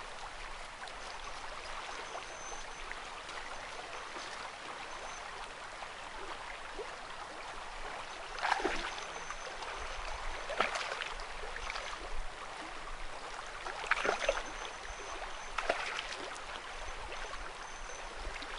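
A river running steadily over a shallow riffle, with a few short sharp clicks and knocks about halfway through and later.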